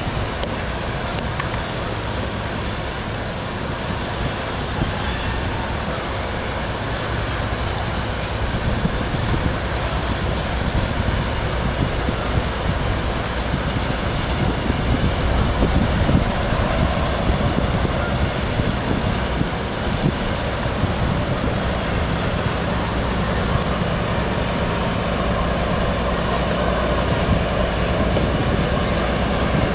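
Wind buffeting the microphone over a steady low rumble of ship engines as a harbour tug tows a Great Lakes freighter upriver; the level rises a little after the first several seconds.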